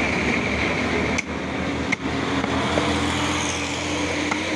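Steady din of engines and street traffic, with a steady low hum in the second half. Two sharp knocks come about a second and two seconds in: a butcher's cleaver striking beef on a wooden chopping block.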